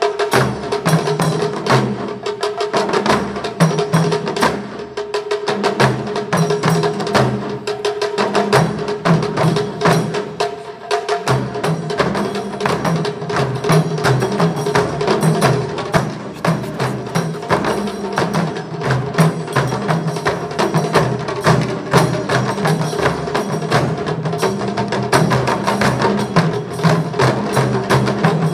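Taiko drum ensemble playing a fast, steady pattern of sharp strikes, with deep drum strokes beneath that drop out for a few seconds and return strongly about eleven seconds in. A Japanese bamboo flute (fue) holds long notes above the drums.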